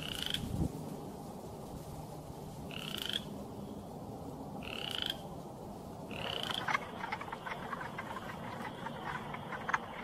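Chorus frogs calling: four short rising trills, each about half a second long, a couple of seconds apart. About seven seconds in, a chorus of wood frogs takes over with a rapid run of short clucking calls. A brief low thump comes about half a second in.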